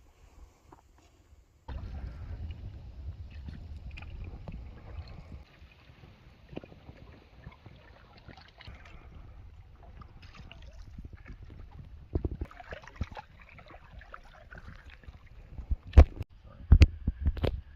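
A canoe being paddled: water sounds from the paddle and small knocks. Several sharp knocks come near the end.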